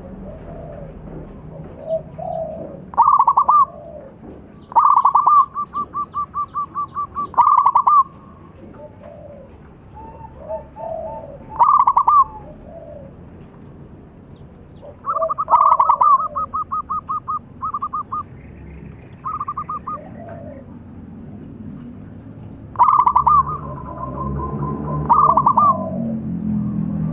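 Zebra doves (perkutut) cooing. Several loud song phrases each open with a strong note, run into a quick even series of short clipped coos and close on a final note, with softer calls in between.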